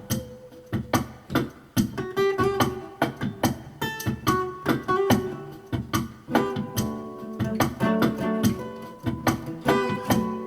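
Guitar music: plucked notes in a quick, steady rhythm.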